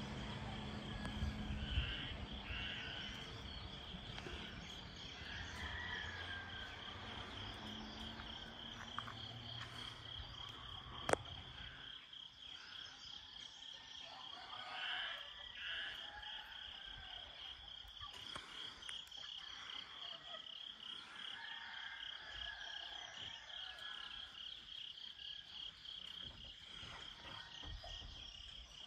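Dawn chorus of insects and frogs: a steady, high, rapidly pulsing trill with scattered softer calls over it. A low rumble underneath fades out about twelve seconds in, and there is a single sharp click about eleven seconds in.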